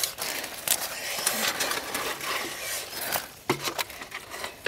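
Live fish thrashing and flapping against the plastic and metal of an old computer case as a hand grabs among them: a rapid, continuous clatter of small taps and wet rustling.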